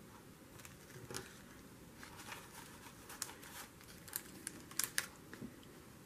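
Faint, scattered light clicks and crinkling, a cluster of them about four to five seconds in: small adhesive plastic hearts being picked off their backing sheet and pressed onto a paper tag.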